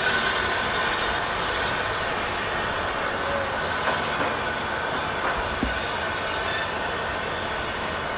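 BR Standard Class 7 4-6-2 steam locomotive No. 70000 Britannia pulling away with a train, a steady hiss of steam escaping at the cylinders.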